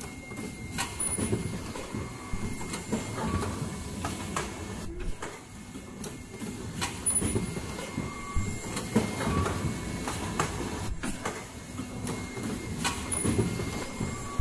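Fully automatic N95 cup mask production machine running, with a short loud burst every two to three seconds over a steady mechanical clatter.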